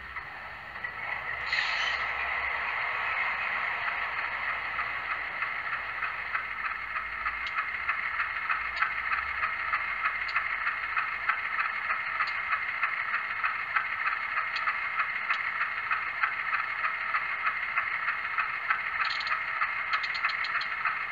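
LokSound Select sound decoder in an HO-scale GE U25B locomotive model, playing its idling diesel engine sound through a small speaker, thin and without bass. Over this it plays the spitter valve, the reservoir drain's short hissing spits of air: every second or two at first, then quickly one after another near the end.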